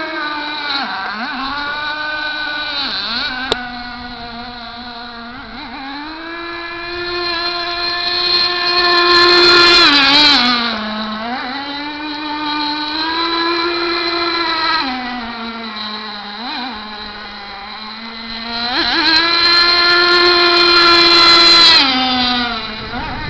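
RC racing boat's OS .18 TZ nitro two-stroke engine with a tuned pipe, screaming at high revs as the boat runs. It grows louder twice as the boat comes close and the pitch drops after each pass, with small rises and falls in pitch between.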